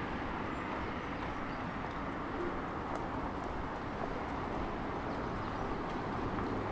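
Steady outdoor city street ambience: an even wash of background noise with no single sound standing out.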